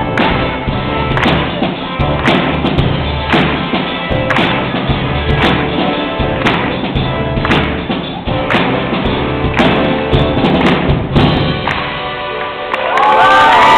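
Live amateur rock band of electric guitar, bass and keyboard playing an upbeat song, with a strong beat about once a second. The music winds down and the audience starts cheering and whooping near the end.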